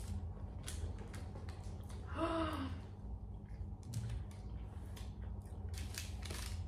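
A woman's short vocal exclamation about two seconds in, falling in pitch, as she reacts to a spicy sauce. It comes among scattered small clicks from eating and handling food.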